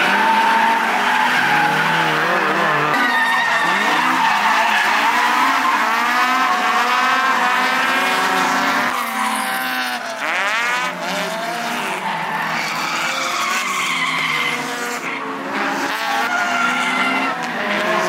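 Several drift cars on track at once, their engines revving up and down in overlapping, constantly changing pitches while the tyres skid through sustained slides.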